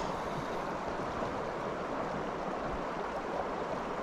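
Steady rush of river water flowing past, an even wash of noise with no distinct splashes.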